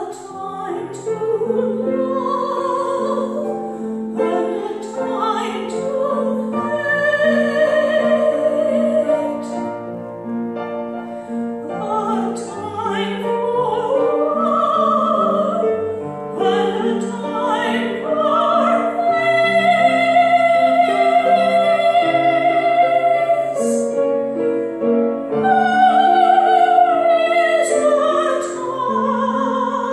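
A solo voice singing with wide vibrato in a classical style, accompanied by piano, in long sustained phrases with brief breaths between them.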